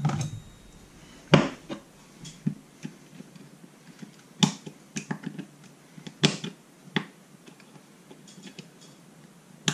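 Sharp, irregular metallic clicks and taps of a small hand tool on a chainsaw recoil starter's C-clip and pulley, working the spring-loaded clip loose. The loudest click comes about a second in, with a cluster of lighter ones in the middle.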